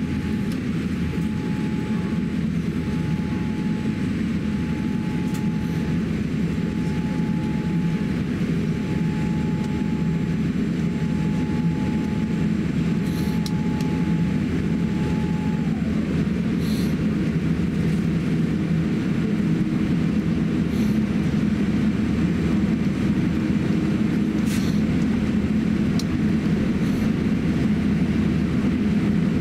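Cabin noise of a Boeing 787-8 airliner taxiing: a steady low rumble that grows slightly louder toward the end. A thin whine drops in pitch and stops about halfway through, and a few faint ticks sound.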